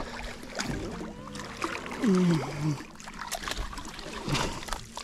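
A barramundi thrashing and splashing at the surface beside a boat as it is scooped into a landing net, with sharp knocks and rattles of the net and gear against the hull. A short falling sound comes about two seconds in.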